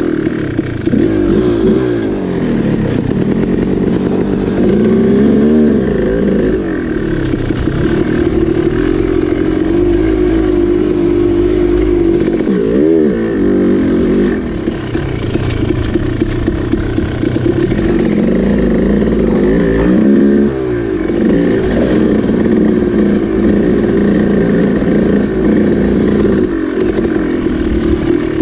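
Dirt bike engine running under way on a trail, its pitch rising and falling repeatedly as the throttle is opened and closed, with several sharp revs up and back down.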